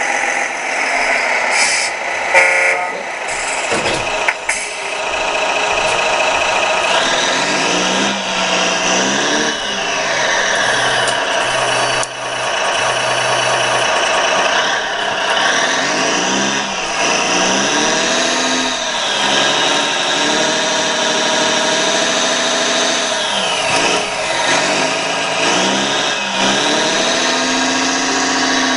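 The hydraulic pump drive of a 1:16 radio-controlled excavator whines continuously. Its pitch rises and falls again and again as the claw and arm move under load. A few knocks come in the first few seconds, as the claw handles logs.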